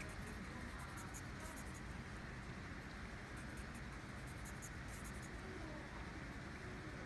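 Wooden scratcher stick scratching across the black coating of a scratch board in short strokes, heard as intermittent dry scratching over a steady low hiss.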